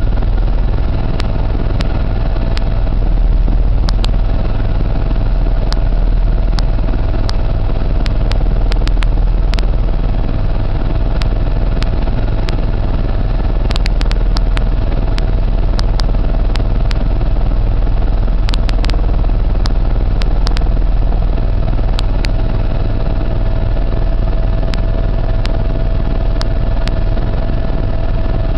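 Steady engine drone of a small sightseeing aircraft heard from inside its cabin, deep and constant with a steady hum, with scattered sharp clicks.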